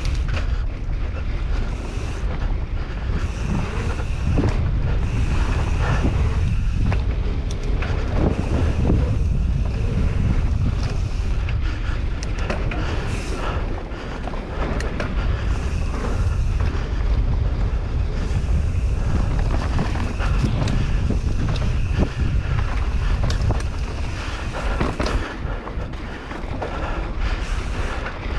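Wind rushing over the microphone of a camera mounted on a mountain bike riding a dirt singletrack, with a steady low rumble and scattered clicks and rattles as the bike runs over bumps.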